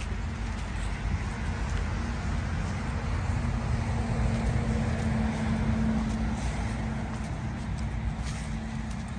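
A motor vehicle passing on a road, its noise swelling to a peak about midway and then fading, over a steady low rumble.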